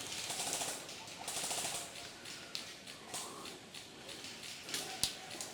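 Airsoft guns firing rapid rattling bursts of automatic fire during the first second and a half, then quieter field sound. A single sharp snap comes about five seconds in.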